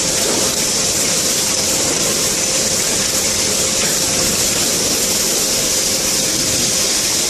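Zipper slider assembly machine running with its motor on: a steady, loud mechanical noise with a strong hiss and a faint steady tone that stops near the end.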